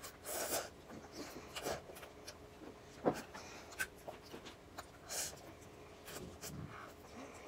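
A child slurping yakisoba noodles off chopsticks: several short slurps spread through a few seconds, with quieter eating sounds between.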